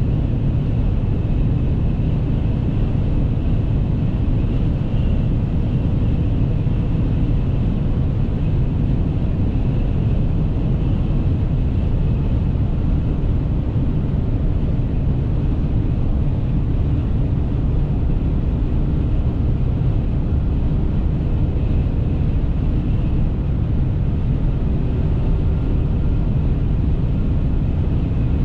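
Inside the cab of a Ram 1500 with the 5.7 Hemi V8, cruising at about 165 km/h: a steady low drone of engine, tyre and wind noise.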